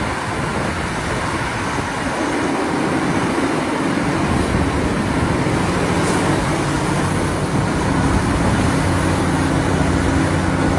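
Heavy mining equipment engines running steadily amid a constant wash of machine noise, with a low engine hum coming through more clearly about halfway through.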